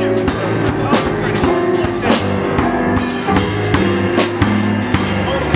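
Live band playing 3D-printed instruments, a drum kit and electric guitar with keyboard: a steady rock groove of drum and cymbal hits over a repeating low bass line.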